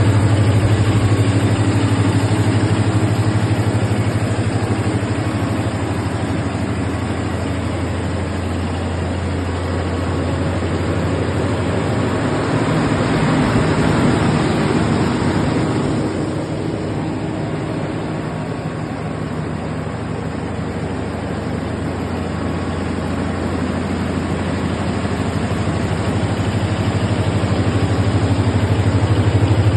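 Large 1000 kVA diesel generator set running steadily, a deep continuous engine drone. It gets somewhat quieter in the middle and louder again near the end.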